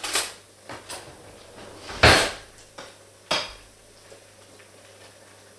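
Dishes and cutlery clinking and knocking: a handful of separate sharp knocks, the loudest a clatter about two seconds in and another about a second later.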